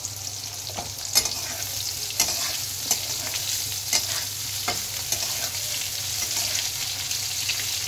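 Pieces of pointed gourd (parwal) sizzling steadily in hot oil in a wok while a metal spatula stirs them, clinking and scraping against the pan about once a second through the first five seconds.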